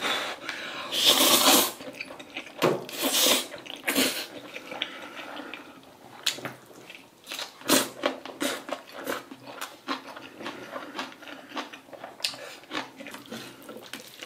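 A person loudly slurping a mouthful of black bean sauce instant noodles with green onion kimchi, in a few hard bursts during the first four seconds, then chewing it with many quick wet smacks and clicks.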